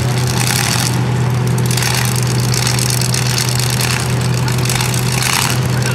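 Engines idling steadily: a loud, even low hum with a noisy crackling hiss above it.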